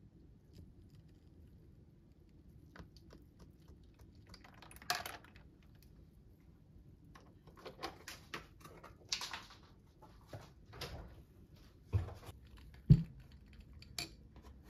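Scattered soft clinks of ice cubes and a glass straw in a glass of iced coffee, with brief rustles, then a few sharper knocks near the end as the glass is set down.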